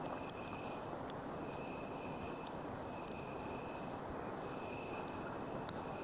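Steady background hiss with insects trilling: a high chirping tone that breaks off and starts again every second or so, plus a few faint clicks.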